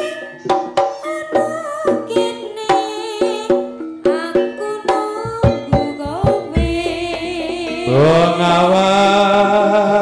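Live jaranan ensemble music: quick drum strokes over pitched melodic instruments, with a deep low stroke past halfway and a louder long held note from about eight seconds in.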